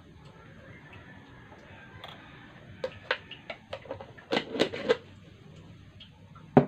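Small spoon-and-jar handling sounds: a metal spoon ticking against a mug and a glass sugar jar, then a quick run of clicks as the screw lid is twisted back onto the jar. Near the end the jar is set down on the wooden table with a single knock, the loudest sound.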